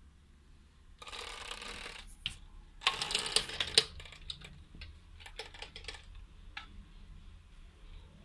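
Cats moving about on a vinyl closet floor: a brief rustling scrape about a second in, a louder scratchy rustle with sharp clicks around three seconds in, then scattered light clicks that die away.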